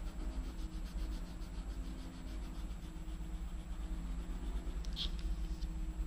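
Steady low background hum, with a short high-pitched chirp about five seconds in.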